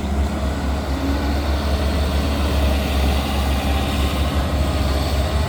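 Diesel engine of a CAT hydraulic excavator running steadily, a deep, even drone.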